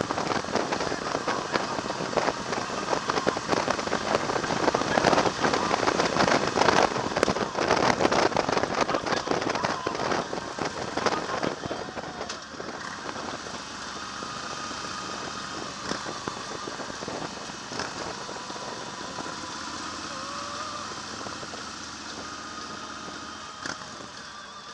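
Wind rushing and buffeting on the microphone of a camera mounted on a moving motorcycle, a dense crackling roar over the bike's running noise. It eases to a steadier, quieter rush about halfway through.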